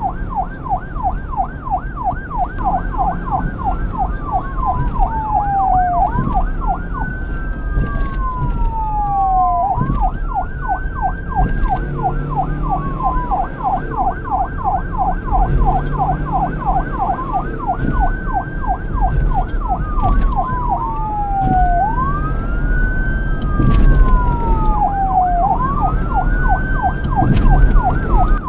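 Police car siren alternating between a fast yelp, about five quick rises and falls a second, and a slower wail that sweeps up and then glides back down, over a low rumble.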